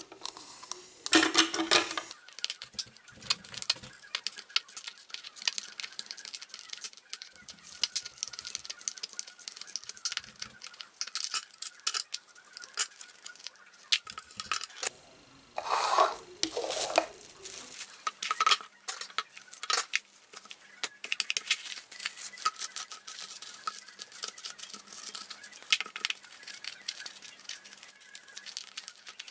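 Hard plastic egg-mould halves clicking and knocking as they are handled, and cling film rustling and crinkling as it is pulled off the roll and wrapped over a mould half. There are louder rustling bursts about a second in and again around the middle.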